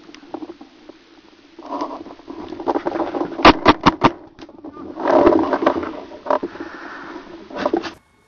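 Paintball marker firing a quick burst of about five shots a little over three seconds in, with single shots later on, amid rustling and scuffing noise from the player moving.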